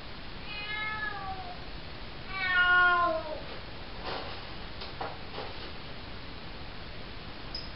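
Four-month-old calico kitten meowing twice, each call falling in pitch, the second one louder. A few soft scratches follow as she digs in the cat litter.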